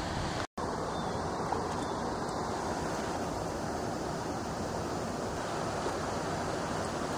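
Steady rushing outdoor noise of wind or moving water at the shore, unbroken except for a short gap of silence about half a second in.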